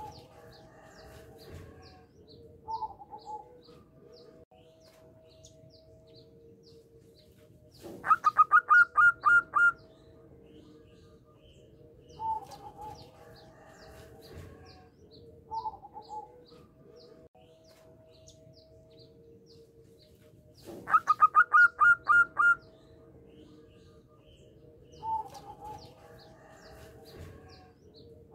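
Zebra dove (perkutut) cooing: two loud runs of rapid staccato notes, about eight notes in a second and a half each, with shorter single coos between them. Faint high chirps of small birds sound in the background.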